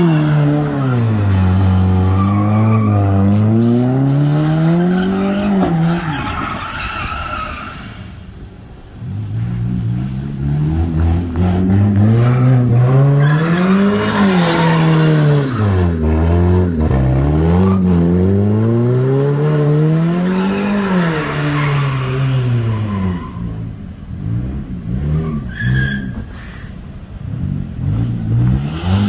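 A stripped-down car's engine revving up and down over and over while its tyres squeal through repeated donuts. The sound drops briefly about a third of the way through and is quieter for a while near the end.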